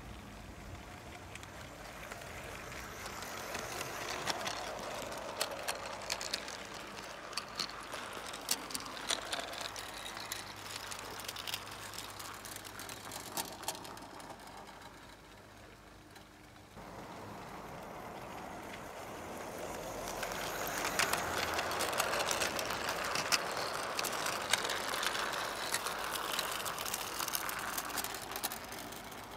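O gauge model train running along garden track, its wheels rattling on the rails with many irregular clicks. It grows louder as it passes, fades away, and then a closer pass about two-thirds of the way in is louder still.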